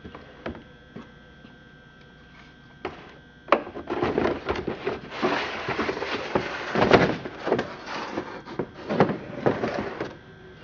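Handling sounds of a chainsaw being set into its carry case: a string of knocks, clacks and scrapes starting a few seconds in, loudest about seven seconds in.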